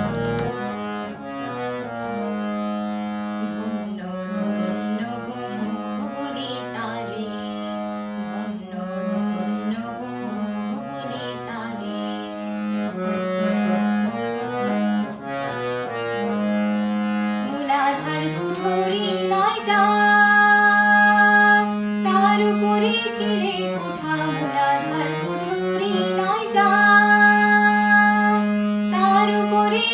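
Carnatic-style Indian music: a steady low drone under a reed-like melody. From about eighteen seconds in, a higher, sliding melodic line joins, which fits a girl singing.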